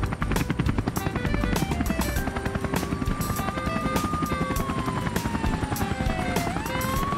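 Police helicopter rotor chopping steadily, under background music. About two and a half seconds in a siren starts wailing, its pitch sinking slowly and then sweeping back up near the end.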